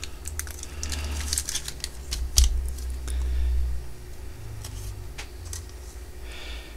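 Trading cards being slid into plastic Ultra Pro card sleeves and handled: irregular light clicks, taps and plastic rustles, with a louder knock about two and a half seconds in.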